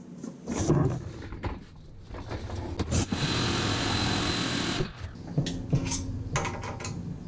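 Shop vacuum running for about two seconds, switching on and cutting off abruptly, while cleaning out a bandsaw. Clunks and knocks of handling come before it and scattered clicks after.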